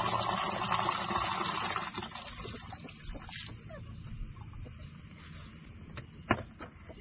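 A steady rushing pour into the chicks' feeder or waterer for about two seconds, then quieter handling clicks and a sharp knock about six seconds in.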